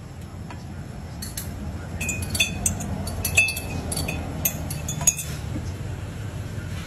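Light clinks and taps of metal and glass kitchenware, a dozen or so sharp ringing strikes over a few seconds, over a low steady hum.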